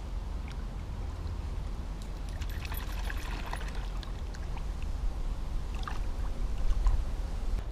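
Small white dog wading through a shallow stream, water sloshing and splashing around its legs, with a few sharper splashes a couple of seconds in and again near the end.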